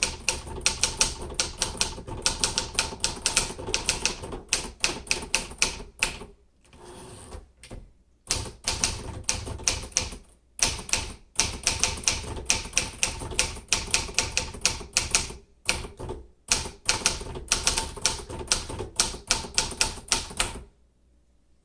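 Typing on a 1957 Remington Rand Quiet-Riter manual typewriter: runs of quick, sharp keystrokes broken by a few short pauses. The typing stops about a second before the end.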